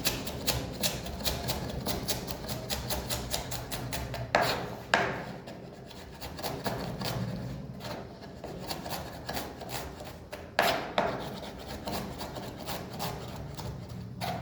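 Kitchen knife working on a wooden chopping board: a rapid, regular tapping and scraping of about three to four strokes a second, with a few louder knocks.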